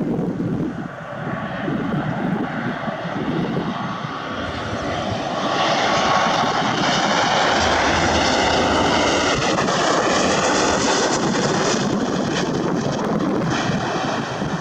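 An airliner coming in to land passes close by. Its engine noise builds, peaks, and the engine whine drops in pitch as it goes past. Gusty crosswind buffets the microphone.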